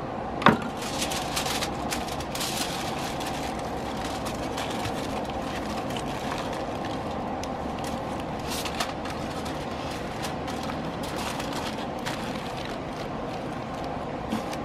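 Aluminum foil crinkling and rustling in several short bursts as a roast is wrapped by hand, with a sharp metal knock about half a second in. A steady mechanical hum runs underneath.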